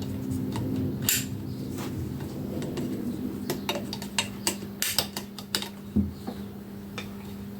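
Scattered light clicks and clinks of hand tools and small fork parts being handled while a retaining clip in a motorcycle front fork is worked into its groove, busiest in the middle with a duller knock just after, over a steady low hum.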